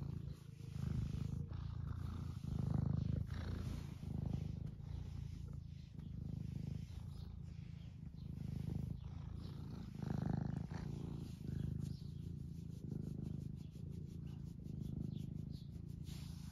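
Semi-long-haired domestic tabby cat purring steadily while being stroked, the purr swelling and easing with each breath about every second and a half.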